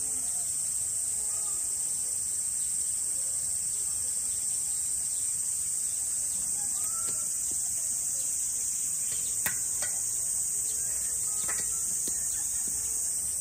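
Insects droning steadily in a high, unbroken pitch. Two sharp clicks come a couple of seconds apart past the middle.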